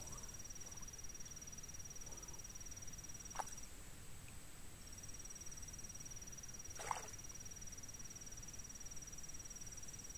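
Insect trilling steadily at a high pitch, with a fainter higher tone alongside; the trill stops for about a second in the middle, then resumes. Two short sharp taps sound, one just before the pause and one about two seconds after it.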